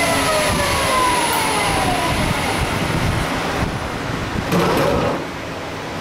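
Grizzly G0602 lathe spindle winding down after a finishing pass, its whine falling steadily in pitch over the first two or three seconds, over a steady hiss of flood coolant that stops about three and a half seconds in. A short rustle follows about a second later.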